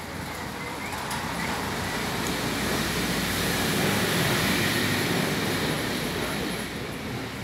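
Electric sliding gate in motion: the stainless steel gate rolling along its ground track, driven by its base-mounted motor. A steady rolling, rumbling noise that grows louder toward the middle and eases off near the end.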